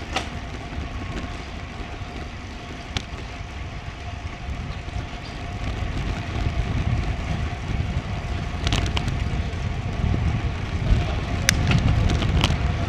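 Wind and road rumble on a bicycle-mounted action camera's microphone, growing louder in the second half, with a few sharp clicks and rattles.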